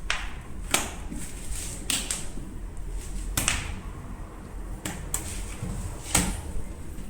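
Packaging and parts being handled during unboxing: sharp knocks and clicks at irregular intervals, with soft rustling in between.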